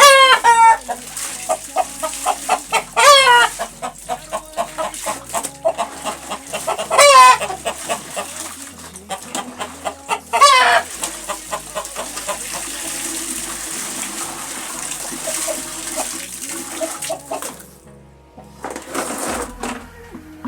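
Chickens calling: four loud, sliding crow-like calls about three to four seconds apart, with short clucks between them, over background music with a stepping bass line.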